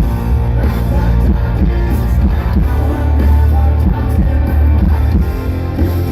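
Hard rock music: distorted electric guitars, bass and drum kit playing steadily, with some singing.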